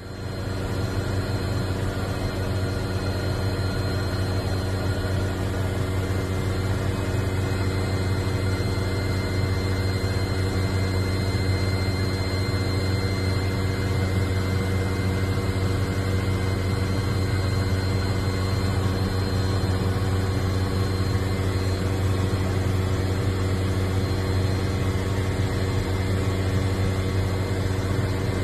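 Aircraft engines running steadily, heard from inside the cabin as a loud, even low hum with several steady tones above it.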